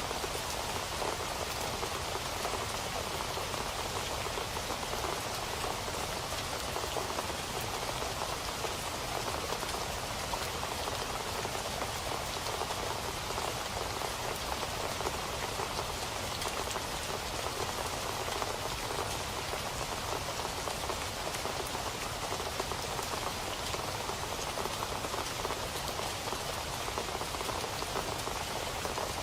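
Steady rain falling and pattering on a surface, an even wash of many small drop ticks with no let-up.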